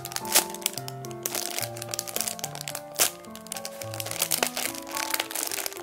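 Clear plastic bag crinkling and crackling as a squishy toy is squeezed inside it, with two sharper, louder crackles, one about half a second in and one about three seconds in. Background music with held notes plays throughout.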